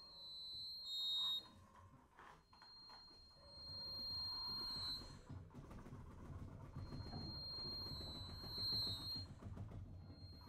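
Quiet experimental chamber music for baritone saxophone, accordion and percussion: a high, thin held tone sounds in several long notes over a low, rumbling texture.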